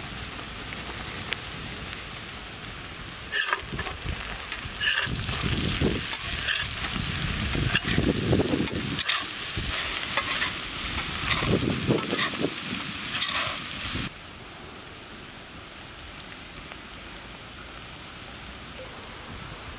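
Onions, ginger-garlic paste and sliced green chillies sizzling in oil on a large iron tawa. A metal spatula scrapes and stirs across the iron in repeated strokes from about three seconds in. The stirring stops about fourteen seconds in, and a quieter sizzle goes on.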